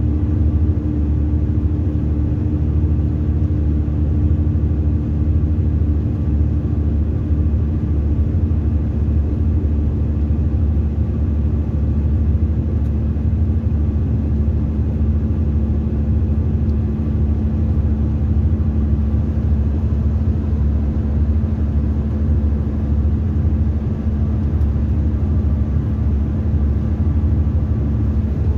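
Mercedes-Benz 2442 coach heard from inside the passenger cabin while driving: a steady low rumble of engine and road noise. The engine note changes slightly about ten seconds in.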